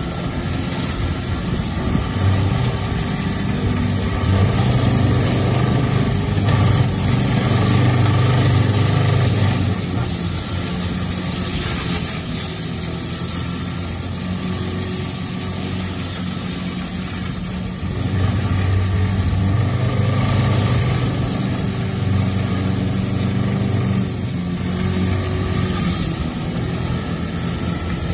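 Hydraulic excavator mulcher shredding grass and reeds, driven by a 14-tonne wheeled excavator's diesel engine. A steady engine drone under the whirring hiss of the cutting rotor, swelling louder twice for several seconds at a time as the engine takes more load.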